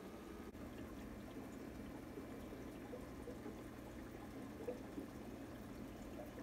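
Aquarium water circulating with a steady, low trickling sound, as from a filter or air stone in a turtle tank.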